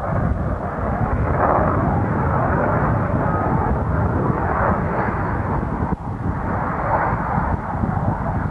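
F-16 fighter jet's engine in display flight, heard as a steady, continuous rumble with a hiss on top. A brief dropout with a click about six seconds in marks a tape edit.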